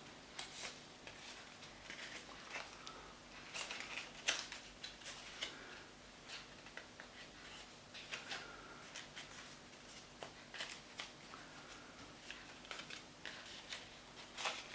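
A sheet of copy paper rustling and crackling in the hands as it is creased and curved into shape, in faint, irregular crisp crackles.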